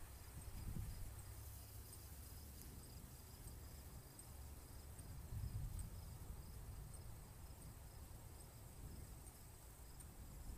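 Faint crickets chirping steadily in a repeating high trill, over a soft low rumble that swells about midway.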